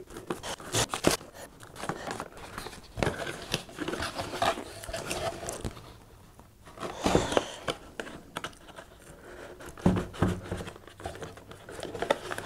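Clear plastic shrink-wrap being torn and peeled off a small cardboard product box, crinkling and crackling in irregular bursts, followed by the cardboard lid and an inner cardboard tray rubbing and tapping as the box is opened.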